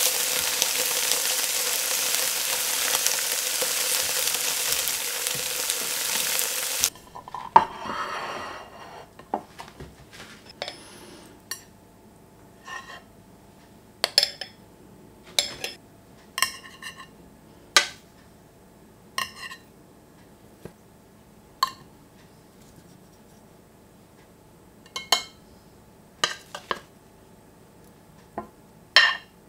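Slices of hard tofu frying in a stainless steel pan: a loud, steady sizzle that cuts off suddenly about seven seconds in. After that, a metal spoon makes scattered light clinks and taps on a ceramic plate.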